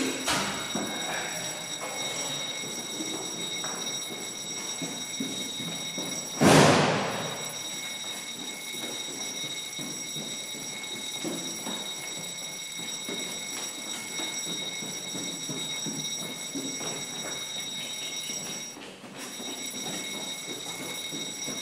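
Building fire alarm sounding a steady, unbroken high-pitched tone. About six seconds in, a heavy door bangs once, loudly.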